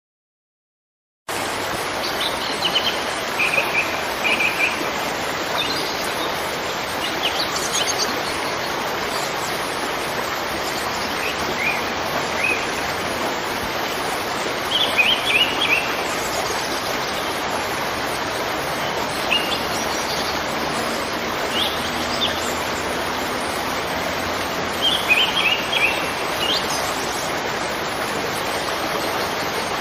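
Steady rushing of a waterfall, with small birds chirping in short clusters every few seconds over it. The sound starts about a second in, after a moment of silence.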